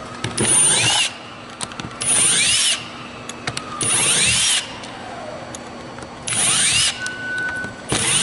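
Cordless drill-driver backing out Phillips screws from a nailer's plastic housing: four short runs of under a second each and a fifth starting near the end, the motor whine rising as each run spins up.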